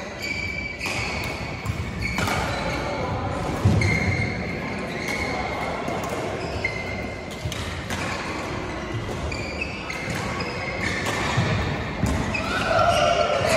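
Badminton doubles rally: sharp racket strikes on the shuttlecock, short high shoe squeaks on the court floor several times, and footfalls, echoing in a large sports hall.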